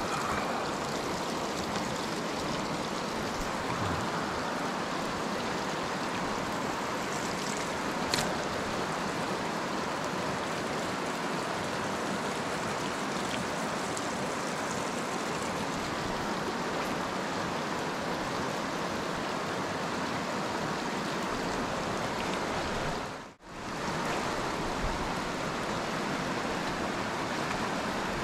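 Creek water rushing steadily over a shallow riffle, an even, unbroken rush. It cuts out for a split second late on.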